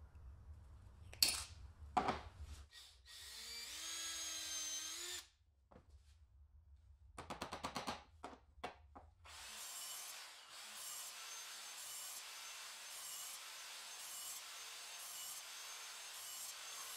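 Hand tools working wood: two sharp knocks, a small power drill whining for about two seconds, and a quick run of clicks. Then, from about ten seconds in, steady rhythmic scraping or sawing strokes on wood, about three every two seconds.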